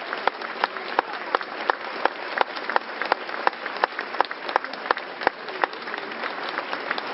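Crowd applauding, with one pair of hands close by clapping steadily about three times a second over the general clapping.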